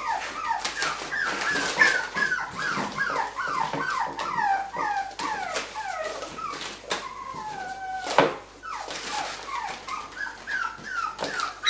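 Cairn Terrier puppies yipping and whimpering: a quick, overlapping string of short high calls, each falling in pitch, with a few longer drawn-out whines. Scattered short crackles of the paper sheet they are attacking come through between the calls.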